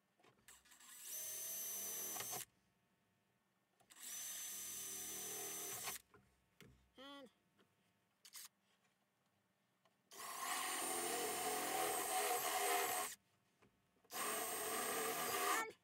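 Cordless drill boring holes through sheet metal in four separate runs, each lasting a second and a half to three seconds, with a steady high motor whine.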